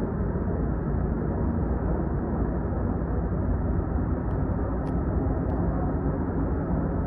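Steady low rumble of a Link light rail train running, heard from inside the passenger car, with three faint ticks about half a second apart near the middle.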